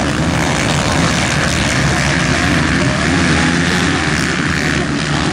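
A pack of motocross bikes racing off the start: many dirt-bike engines revving hard together, loud and steady.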